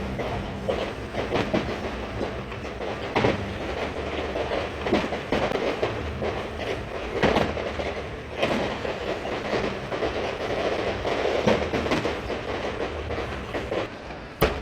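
Fireworks going off: a dense run of irregular bangs over continuous crackling, with sharper reports several times, the last and one of the loudest near the end.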